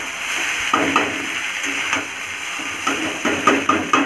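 Chowmein noodles and onions sizzling in oil in a metal kadhai, with a metal spatula scraping and clacking against the pan several times as they are stirred.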